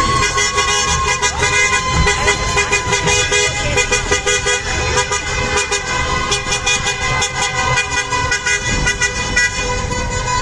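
Vehicle horns honking on and on in celebration, held tones overlapping, with many short sharp clicks and a few rising and falling whistle-like calls mixed in.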